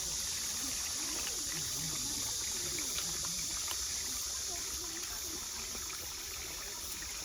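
Mountain stream water running steadily, with a faint wavering voice-like sound in the background.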